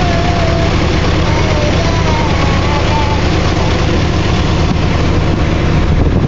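Heavy diesel engines of road-work machinery running steadily, a loud, even low hum.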